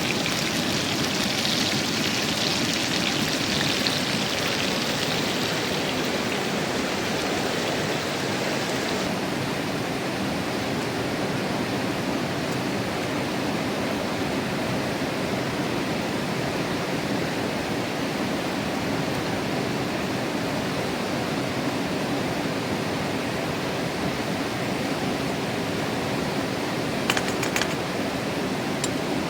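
Mountain river flowing steadily. An extra bright hiss runs through the first nine seconds or so and cuts off abruptly, and a few faint clicks come near the end.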